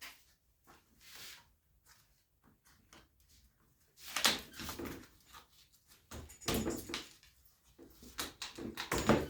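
Staples being pulled out of a door panel with vice grips (locking pliers): a scattering of short clicks, scrapes and small knocks that starts about four seconds in, after near quiet.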